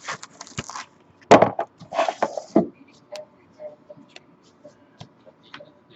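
Trading cards and packaging being handled: rustling and clicking of plastic, with a few louder rustles in the first two and a half seconds and then lighter ticks.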